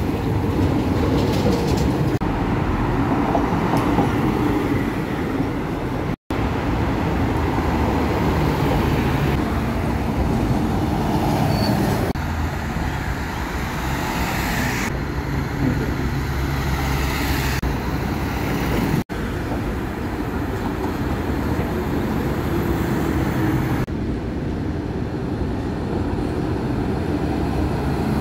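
Diesel trucks and other street traffic passing close by: engine drone and tyre noise. The sound changes abruptly every few seconds, with brief dropouts about six and nineteen seconds in.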